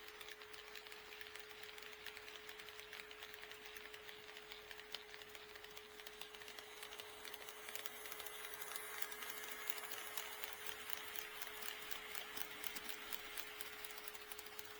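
HO scale model train running on KATO Unitrack, its wheels making a rapid, even clicking over the rail joints that grows louder about halfway through as it comes close. A steady hum runs underneath.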